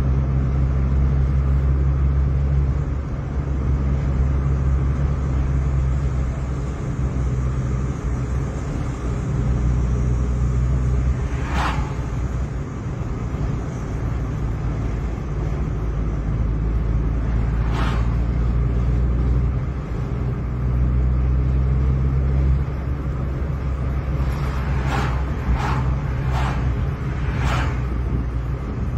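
Steady low rumble of a car driving at road speed, heard from the moving car. Two single short knocks in the middle and four more in quick succession near the end.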